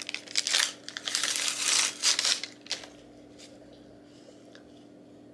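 Crinkling and rustling of a DNA cheek-swab wrapper being handled and opened by hand, in a run of bursts that stops about three seconds in, followed by a few light ticks.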